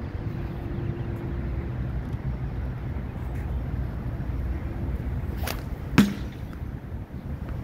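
Rope sling whipped through a throw of a tennis ball: a sharp crack, then a louder sharp crack about half a second later, over steady wind noise on the microphone.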